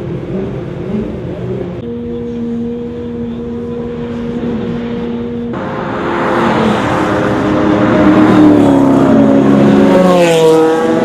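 Race car engines running on a circuit, the sound changing abruptly with the edits. A steady engine drone comes first, then louder engines of cars driving by, with one passing close near the end, its pitch falling as it goes.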